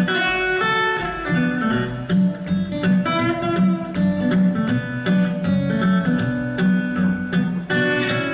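Background music of plucked acoustic guitar with a steady rhythm.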